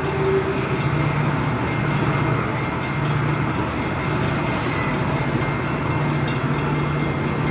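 Freight train of autorack cars rolling past at steady speed: steel wheels running on the rails with a continuous rumble, and a brief high squeal about halfway through.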